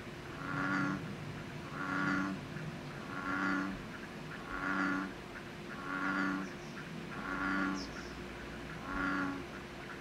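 Frog croaking: a low call repeated seven times at an even pace, about one every one and a half seconds.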